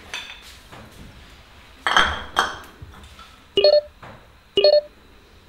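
A glass beer bottle clinking twice against a plaster wall as it is pushed into the corner. Then short electronic beeps, one a second, like a countdown timer ticking off the seconds.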